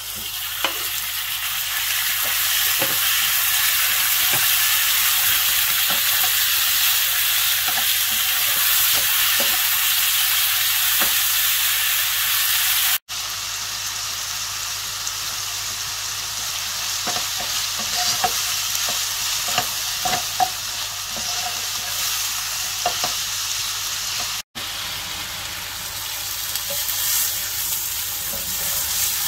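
Raw chicken thigh strips sizzling in hot oil in a frying pan, the sizzle starting suddenly as the meat goes in, with a wooden spatula clicking and scraping against the pan as they are stirred. The sizzle breaks off for an instant twice.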